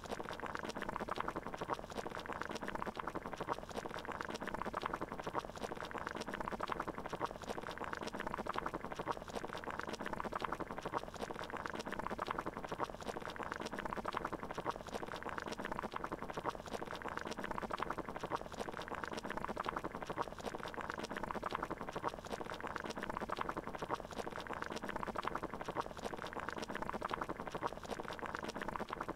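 Water boiling, bubbling steadily and evenly.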